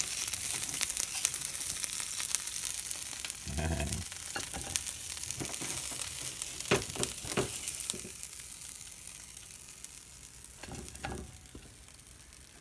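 Pizza slices sizzling in a non-stick frying pan that has just been taken off the heat, with the water added to steam them still boiling away. The sizzle fades gradually, broken by a few short knocks and scrapes of a utensil in the pan.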